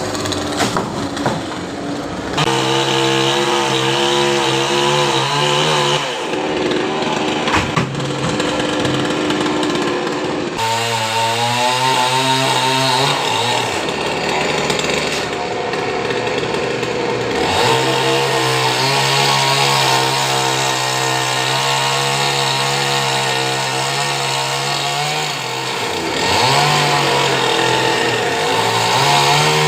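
Chainsaw running and cutting through a coconut palm trunk, its engine pitch shifting up and down several times.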